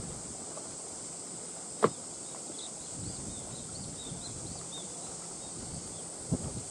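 Steady outdoor hiss with a constant high-pitched buzz beneath it, broken by one sharp click or knock about two seconds in, the loudest sound, and a softer one near the end. A run of faint high chirps comes in the middle.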